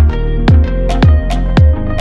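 Electronic background music with a steady kick drum about twice a second under held synth notes.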